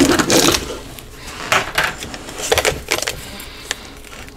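Measuring spoons clinking and scraping against a sugar container while sugar is scooped out: a handful of short, sharp clicks.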